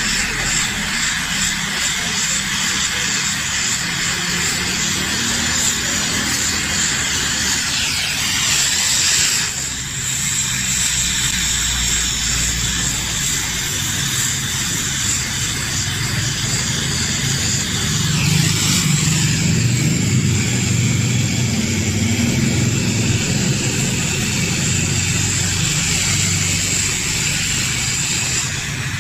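LPG gas-welding torch flame burning with a steady hiss while aluminium is fused with filler rod. A lower rumble joins about two-thirds of the way in.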